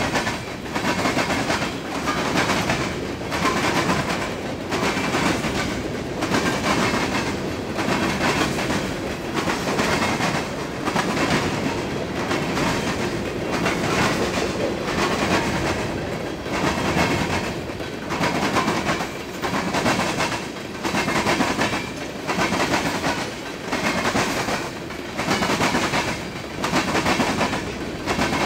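Freight train passing at speed over railroad diamond crossings: its wheels pound the diamonds in clusters of heavy clacks about every second and a half, one car after another, over a steady rolling rumble.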